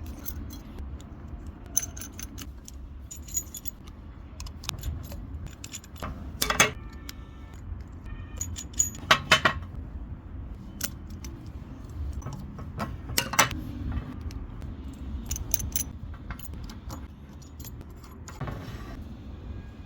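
Metal parts clinking and clicking as they are handled, in irregular sharp knocks with a bright ringing, over a low steady rumble.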